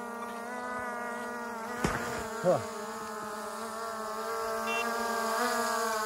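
Quadcopter drone hovering overhead as it is brought in to land, its propellers making a steady high buzz that shifts a little in pitch. A sharp click comes about two seconds in, and a brief falling tone follows just after.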